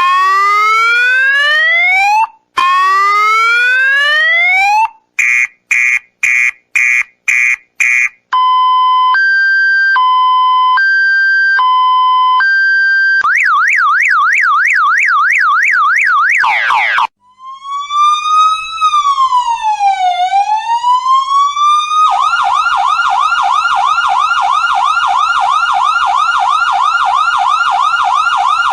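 Electronic emergency-vehicle siren working through several tones in turn: two rising whoops, about six short beeps, a hi-lo two-tone changing about once a second, a fast yelp, one slow wail that rises and falls, then a fast yelp again from about three-quarters of the way in.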